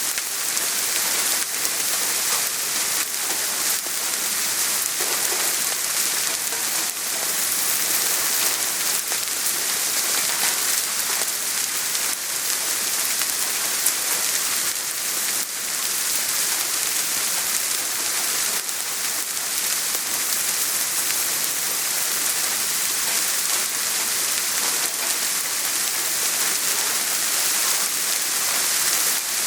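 Steady soft rain falling on a surface, an even hiss with the patter of many fine drops.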